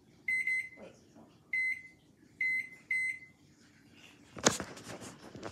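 Microwave oven keypad beeping as the buttons are pressed to enter a cooking time: five short, high single beeps in the first three seconds. About four and a half seconds in comes a sharp knock followed by about a second of rustling noise.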